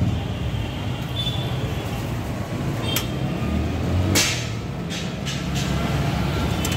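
Steady rumble of road traffic, with a sharp click about three seconds in and a short hiss about four seconds in.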